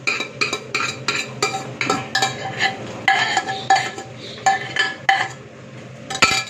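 Steel ladle scraping and clinking against a metal pot while scooping out cooked basmati rice, with ringing metallic strikes about three to four times a second. The strokes pause near the end, then one louder knock.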